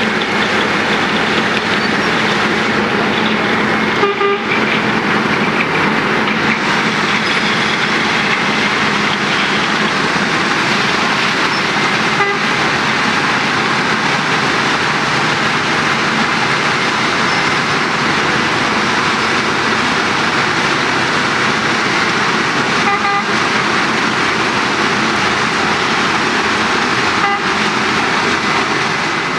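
Wirtgen W 2200 cold milling machine working under load, its diesel engine and milling drum grinding off the old asphalt surface as a loud, steady grinding noise. A few brief sharp sounds break through it, once about four seconds in and again later on.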